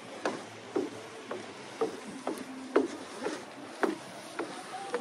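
Footsteps at a steady walking pace, about two a second, some with a brief creak after the step.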